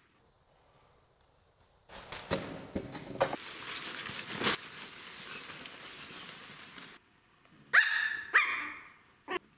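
Cellophane bag crinkling and rustling as a kitten plays in it, close to the microphone. About eight seconds in, a small puppy gives two short, high yapping barks, then a brief third one near the end.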